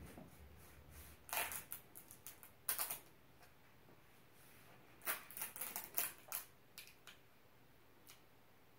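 Blue painter's tape being pulled off its roll in short crackling peels, two main runs of pulls with a pause between, as it is laid along the top of a wall.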